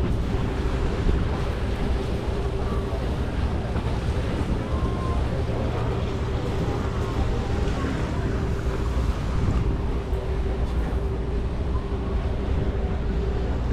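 Open canal tour boat's engine running steadily under way, with a constant hum, wind noise on the microphone and water washing along the hull.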